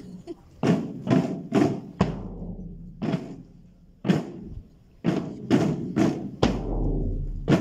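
Marching percussion band playing a slow, uneven beat: bass drum and hand cymbals struck together, about ten strokes in short groups with gaps between, each crash ringing away.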